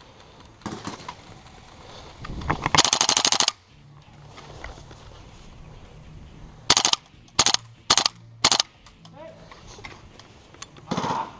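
Gas blowback MP7 airsoft submachine gun firing on full auto: one long burst about three seconds in, then four short bursts in quick succession a few seconds later.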